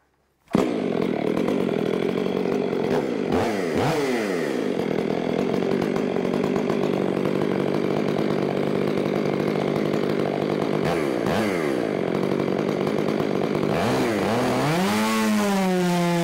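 A Stihl MS 500i fuel-injected two-stroke chainsaw runs at full throttle, cutting a round off a log. It starts abruptly about half a second in, and its engine note sags and recovers a few times under load before settling steady near the end.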